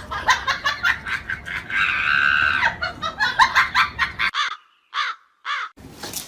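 Rapid run of short, high-pitched chirping, clucking animal calls, with one longer held call about two seconds in. After a brief silence come two more short calls.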